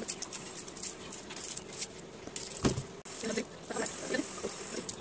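Dry onion skin crackling and rustling as it is picked and peeled off with a small knife, in a run of light irregular clicks. There is one dull knock a little past halfway.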